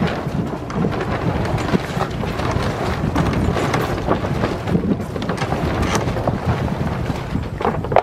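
Wind buffeting the microphone aboard a sailboat under sail: a loud, steady, rumbling rush with short gusty blasts, over the sound of the boat moving through the water.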